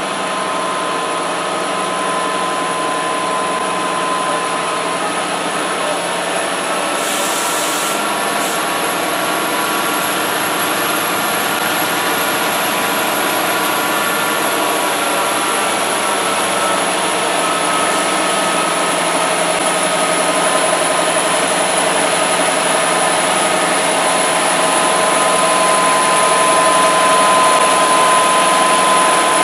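Diesel locomotives leading a CN freight train approaching: a steady engine and cooling-fan roar that slowly grows louder, with a faint steady whine on top.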